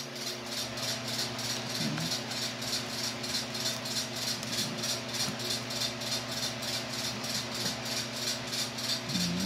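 Steady low background hum with a higher hiss pulsing about three times a second, with no speech.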